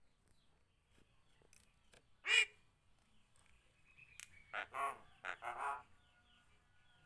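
Javan myna (jalak kebo) calling: one short call about two seconds in, then a run of several calls around five seconds, with faint chirps between.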